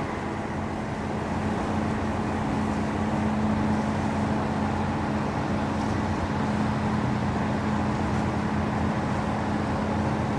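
Outboard boat motor running at a steady speed, an even hum that holds one pitch throughout.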